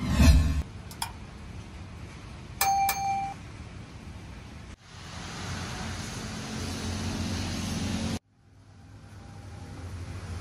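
Steady street background noise with traffic. A loud low rumble comes at the start, and a short bell-like ding comes about two and a half seconds in. The noise cuts out abruptly twice and builds back up each time.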